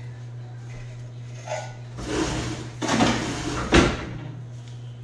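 Clattering and handling noise at a kitchen counter about two seconds in, ending in a sharp knock, over a steady low hum.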